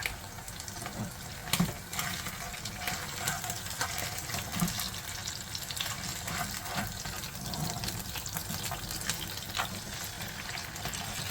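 Water running from a kitchen tap into a sink, with scattered light clicks and knocks of things being handled.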